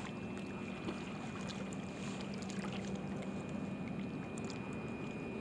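Steady outdoor wind and water ambience at a lakeshore, with a low steady hum underneath and a few faint ticks.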